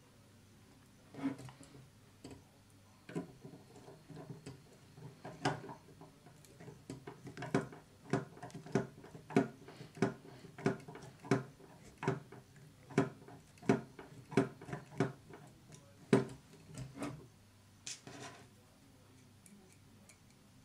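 Small hand screwdriver driving tiny screws into a model truck's chassis rail. It makes a series of sharp clicks, regular at about two a second through the middle, with scattered clicks and clinks of the parts being handled before and after.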